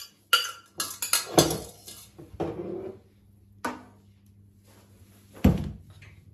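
Metal pots, pans and a spoon clinking and clanking: a quick run of clanks in the first few seconds, a single clank a little later, and a heavier knock near the end.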